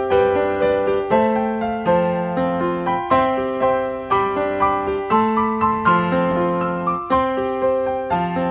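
Background piano music: a gentle melody of evenly paced notes over a repeating accompaniment.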